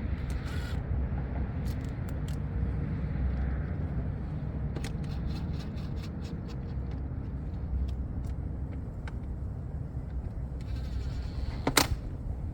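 Wind rumbling on the microphone, with scattered light clicks and taps of plastic air filter housing parts being handled and fitted. One sharp, louder click comes near the end.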